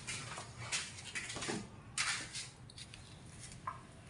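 Handling noise from a person standing up from a plastic chair and moving off: a series of short scrapes and knocks, the loudest about two seconds in.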